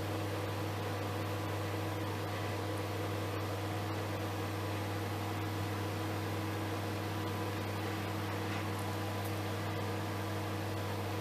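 Microwave oven running with a steady hum over an even whirring hiss.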